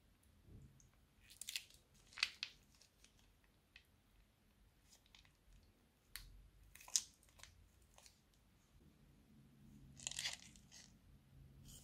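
Thin plastic piping bags crinkling and crackling in the hand as slime is squeezed out of them: scattered small crackles, with a few sharper ones about two, seven and ten seconds in.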